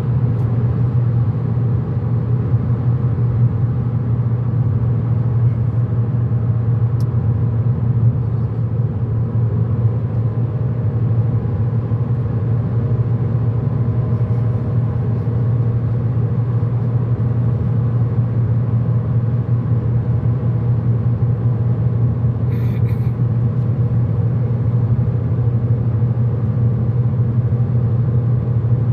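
Car cabin noise at motorway speed: a steady low rumble of tyres and engine.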